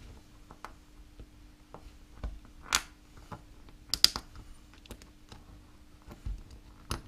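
Small plastic-and-metal clicks and taps from a mobility scooter throttle potentiometer being handled and prised at by hand, with a few sharper clicks near the middle.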